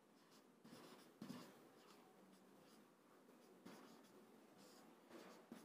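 Faint, short strokes of a marker writing on a whiteboard, a few scattered scratches amid near silence.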